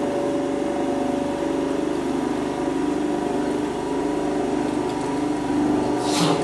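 Beaver 250 electric floor scraper running steadily with a hum of several steady tones, its blade scraping up rubber-backed carpet. About six seconds in, a short harsh noise drops quickly in pitch as the blade reaches the wall.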